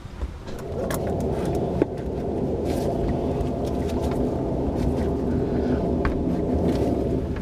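A steady motor rumble comes up about half a second in and holds, with a few sharp clicks and taps from hand work on the engine's hoses and fittings.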